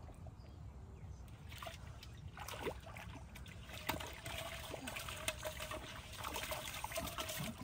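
Shallow muddy water sloshing and splashing as a large metal pot is pushed through it by a person wading, the splashing picking up about two seconds in.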